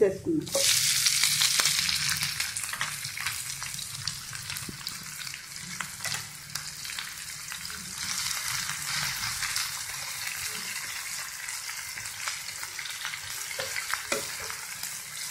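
Chopped onions and green chillies dropped into hot oil in a steel pan, sizzling loudly at once, then frying with a steadier, quieter sizzle as a spoon stirs and scrapes the pan with scattered clicks.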